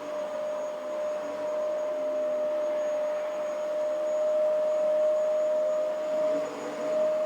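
Vacuum cleaner running steadily, a constant motor whine over a rushing airflow hiss.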